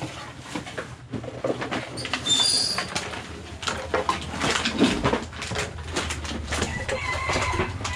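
Rustling and clattering of rubbish being stuffed by hand into a woven plastic sack, with a few short high squeaks about two and a half seconds in.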